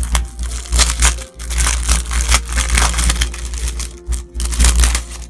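Clear plastic packaging sleeve crinkling loudly as it is handled and pulled open, a dense run of crackles with a short lull about a second in. Soft piano music plays underneath.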